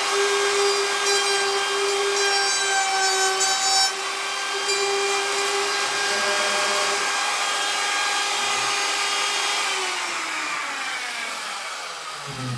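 Electric power tool's motor running with a steady hum and hiss, then switched off about ten seconds in, its pitch falling as it winds down.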